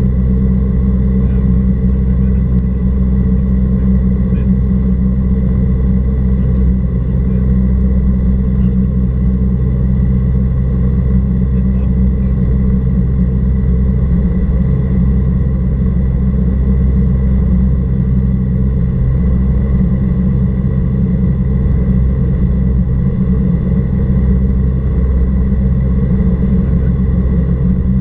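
Cessna 172R Skyhawk's four-cylinder Lycoming engine and propeller running in cruise flight, a loud, even drone that holds steady throughout.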